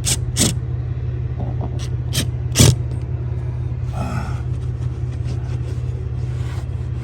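A steady low mechanical rumble runs throughout, with several sharp clicks or knocks over it; the loudest knock comes about two and a half seconds in.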